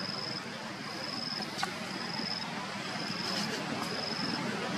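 An insect chirping in a steady rhythm: a high, even note about half a second long, roughly once a second, over a steady outdoor background hum. A sharp click about a second and a half in.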